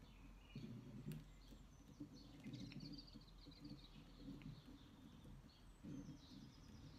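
Faint birdsong: small birds chirping and trilling, with a trill about two and a half seconds in, over a low uneven background rumble.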